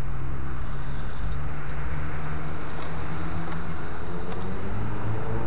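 Steady low hum of a motor vehicle's engine, its pitch rising slightly near the end, with a few faint light clicks.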